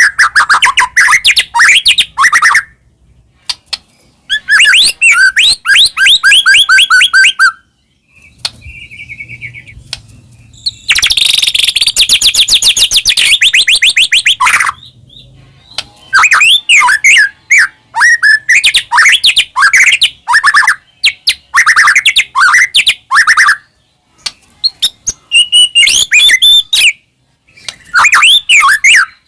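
White-rumped shama (murai batu) singing loudly in full song: varied, fast whistled and chattering phrases in bursts a few seconds long with short pauses between, including a dense rapid trill midway through.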